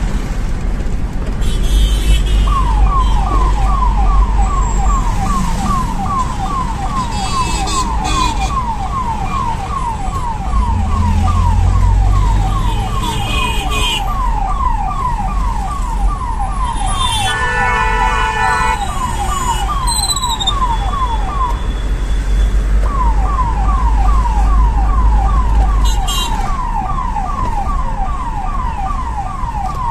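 Ambulance siren on a rapid yelp: quick falling sweeps repeating without a break, stopping briefly about two-thirds through and then starting again, over the low rumble of the engine and traffic. A horn sounds for a couple of seconds a little past the middle.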